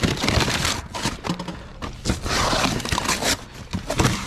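Junk in a dumpster clattering and scraping as debris is shifted by hand to dig out a buried item: a string of sharp knocks, with a longer scrape a couple of seconds in.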